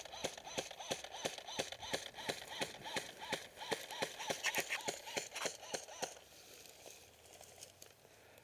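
Running footsteps, about three strides a second, that stop about six seconds in.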